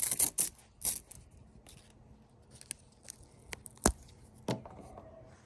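Handling noise as straps and hook-and-loop ties are picked up and fiddled with: a quick run of sharp clicks and light scrapes at first, then scattered ticks, a sharper click just before the four-second mark and a soft thump soon after.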